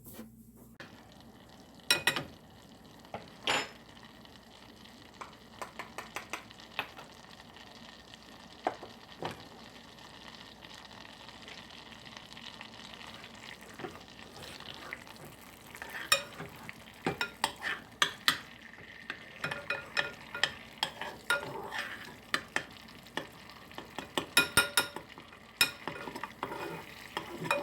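Butter heating and sizzling in a pan on the stove, with a utensil stirring and clicking against the pan. The clicks are scattered at first, then come thick and fast in the second half.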